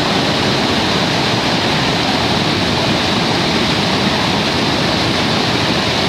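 Niagara River rapids pouring over the brink of Niagara Falls: a loud, steady rush of water with no break.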